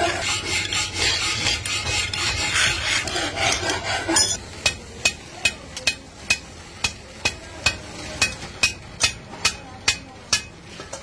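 A steel hand file rasping back and forth across a cast aluminium pan handle. About four seconds in this gives way to a row of sharp, evenly spaced clicks, two to three a second, as the handle is worked at a pillar drill machine.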